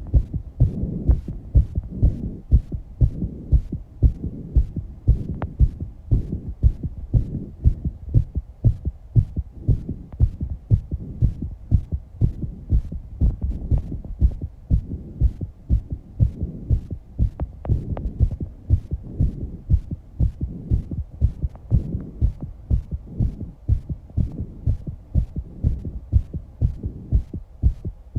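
A young woman's heartbeat picked up close by a microphone, beating fast at about two beats a second, with a low rushing sound between beats. The rate is raised after exercise.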